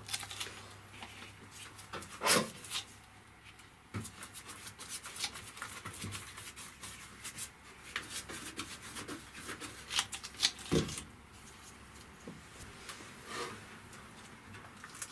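Gloved hands brushing and rubbing resin into fibreglass cloth, with a plastic cup handled: irregular scratchy rubbing and brushing strokes with scattered light knocks. The loudest come about two seconds in and as a pair around eleven seconds.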